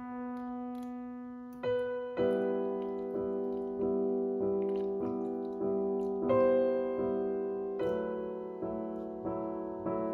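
Solo piano music: a held chord that is then restruck with new chords, one about every half second to a second.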